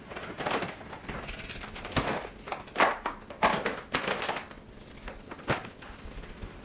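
Handling noises on a laminate floor: scattered knocks and thuds as items are set down, with footsteps. The sharpest knocks fall about two to four seconds in, with one more later on.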